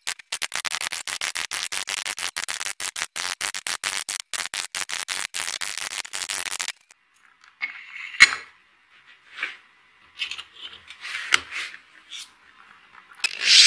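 Steel wood chisel scraping and paring a slot into a wooden block in rapid strokes. It stops about seven seconds in, and a few light taps and clicks follow. Near the end an electric drill starts up.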